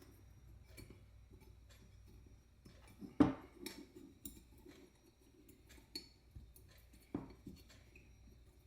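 Faint clicks and metallic clinks of a socket tool and small carburetor parts being handled as the jets of a Bendix-Stromberg WWC carburetor are unscrewed, with two louder knocks about three and seven seconds in.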